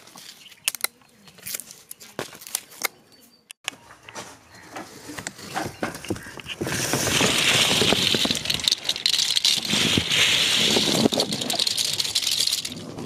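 Loose hollow plastic cone caps for spinner fireworks clattering and rattling as a hand stirs and scoops through the heap, a dense, loud rattle that starts about halfway in and runs for about six seconds. Before it come scattered light clicks and taps of handwork.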